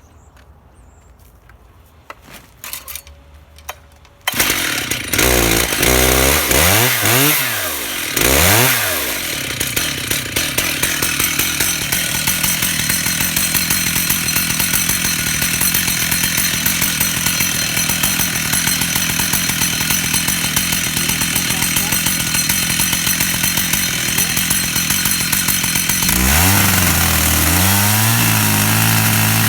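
Stihl 880 two-stroke chainsaw on an Alaskan mill with a 36-inch bar and ripping chain, ripping a black walnut log into slabs. After a few clicks it starts about four seconds in, revs up and down several times, then runs steadily at full throttle, and drops back to a lower, steady speed near the end.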